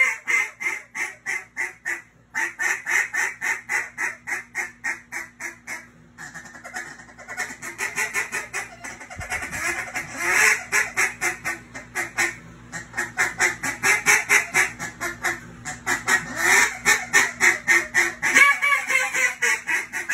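Hand-blown duck call sounding in a contest-style calling routine: rapid runs of quacks, about four to five a second. There is a brief break a little after two seconds, a softer, faster stretch from about six to nine seconds, then loud quacking again.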